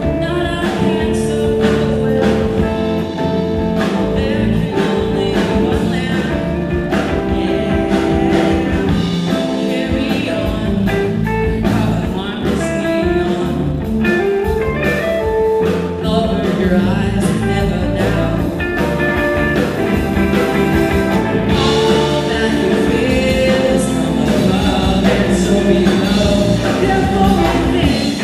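Live psychedelic rock band playing: electric guitar and drum kit with a sung lead vocal, heard as amplified music in a club.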